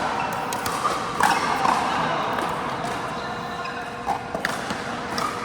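Sharp hollow pops of pickleball paddles striking a plastic pickleball during a rally, with the ball bouncing on the court. There are two close pairs of hits, about a second in and again past the four-second mark, echoing in the hall.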